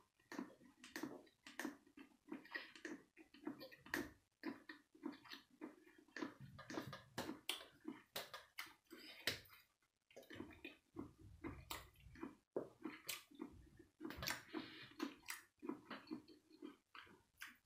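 Wet chewing and lip-smacking of someone eating saucy food close to the microphone, a continual run of short, irregular clicks and squelches.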